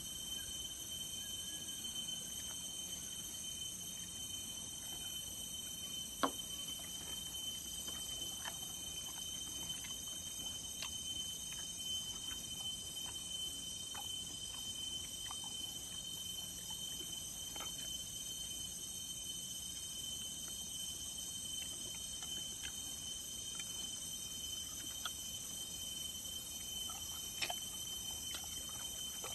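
Rainforest insect chorus, a steady high-pitched drone at several pitches, with scattered faint clicks and snaps, the sharpest about six seconds in.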